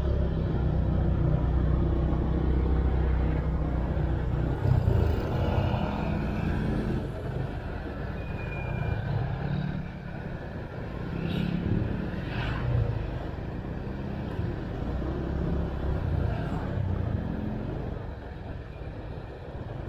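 Motorbike engine running during a ride along a street, with road and wind noise. The engine note shifts several times as the bike slows and picks up speed.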